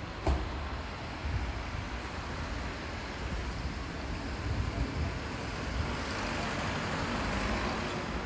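City street traffic noise, steady, with a sharp knock about a quarter second in and a vehicle passing that swells and fades near the end.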